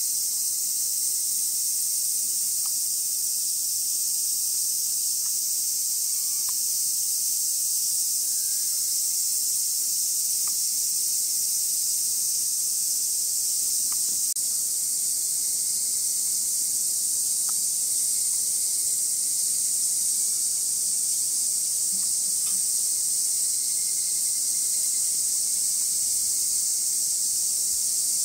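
A chorus of cicadas buzzing, a continuous high-pitched drone that holds steady without a break.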